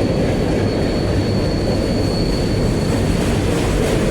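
Freight train cars rolling past with a heavy, steady rumble and one steady high-pitched squeal that fades out about three seconds in. The train is slowing down fast.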